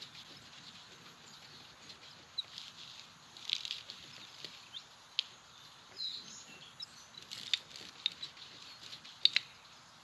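Film sound-effects track: a faint nature ambience with scattered short clicks and high chirps, roughly one every second.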